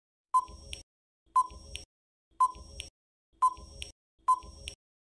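Quiz countdown timer sound effect: five short electronic beep-ticks, about one a second, with silence between them.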